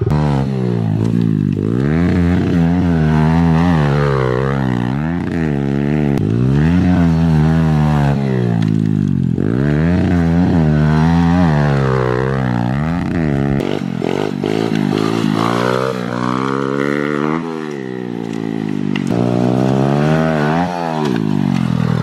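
Kawasaki pit bike engine revving up and down over and over while the bike is ridden, its pitch rising and falling every second or two.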